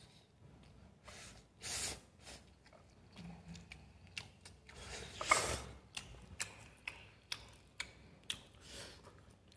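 Eating noodles: wooden chopsticks clicking against a plate, many small irregular clicks, with two short hissing bursts, the louder one about five seconds in.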